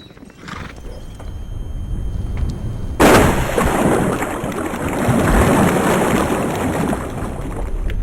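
A rumble builds, then a sudden loud crash about three seconds in is followed by several seconds of heavy, noisy rumbling.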